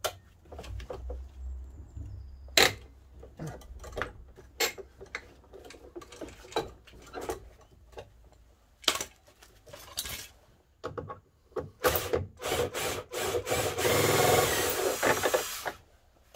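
Scattered sharp clicks and knocks of hand tools working at the screws of a van's front grille, then a cordless drill-driver running for about two seconds near the end, the loudest sound.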